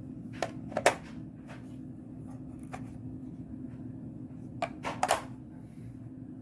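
A handful of sharp clicks and knocks from something being handled, a pair about a second in and a cluster around five seconds, over a faint low steady hum.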